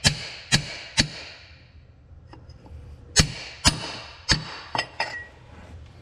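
Small sledgehammer striking a steel-pipe seal driver, metal on metal, driving a new brake seal into an Oliver 1855 tractor's brake housing around the bull pinion. Three blows about half a second apart, a pause of about two seconds, then four or five more, the last ones lighter, each ringing briefly.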